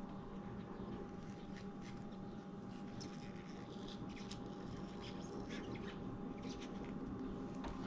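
Kitchen knife working the hard green skin off a slippery aloe vera leaf's gel, giving many faint, short squelching and squeaking strokes. A steady faint hum runs underneath.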